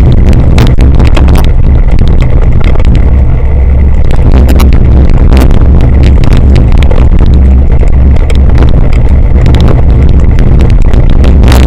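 Wind rumble on the microphone of an action camera carried on a cyclocross bike ridden over bumpy grass, loud and continuous, with irregular knocks and rattles from the bike and mount jolting over the ground.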